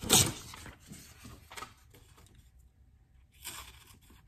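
Handling noise at a workbench. A short knock sounds just after the start, then faint scattered rustles, and a sheet of paper rustles near the end as it is picked up and handled.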